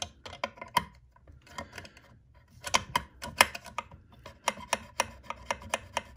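Light metallic clicks and taps in quick clusters as a thin steel throat plate positioning bracket is slid and set into place against the metal parts of a Singer 500J sewing machine.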